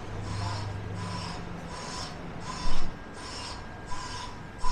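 Rhythmic scuffing at walking pace, a little under two a second: the footsteps and clothing rub of the person walking with the camera, over steady street background noise. There is a low hum in the first second, and a brief louder noise a bit past halfway.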